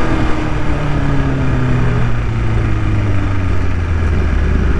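BMW S1000RR inline-four engine through an Akrapovic full-system exhaust, its note falling steadily in pitch as the bike slows down.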